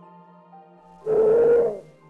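Soft background music with a loud, short animal call, lasting under a second, about a second in.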